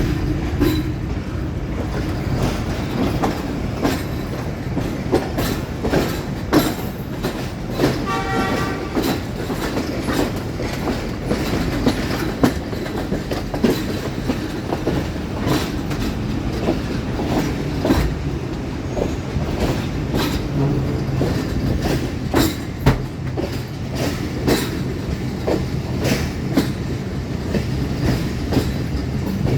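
Passenger train pulling out of a station, its wheels clicking over the rail joints over a steady low rumble. A brief horn sounds about eight seconds in.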